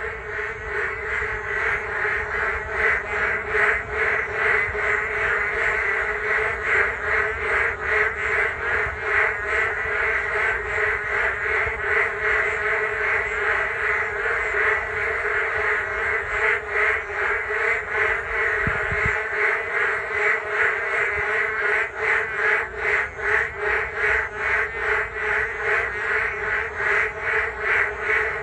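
A large chorus of frogs calling all at once: a dense, continuous din of rapid pulsing croaks.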